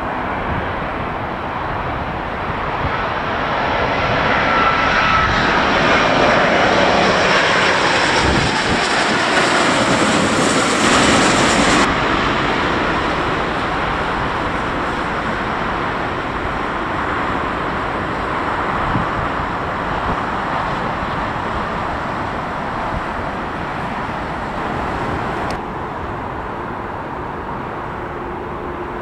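Airbus A350-1000's Rolls-Royce Trent XWB turbofans on final approach, passing low overhead. The jet noise builds to its loudest about ten seconds in, with a whine that falls in pitch as the aircraft passes, then settles into a steady lower rumble. Near the end it steps down to a fainter, more distant approach.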